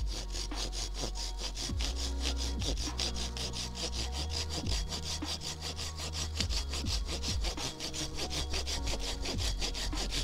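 Silky Pocketboy folding saw cutting through a dead, partly rotten branch with quick, regular rasping strokes. Its large teeth cut on the pull stroke only.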